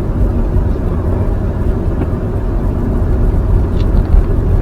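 Steady low rumble of tyre and road noise from a Nissan Leaf electric car driving along, with no engine sound. A faint tick comes about four seconds in.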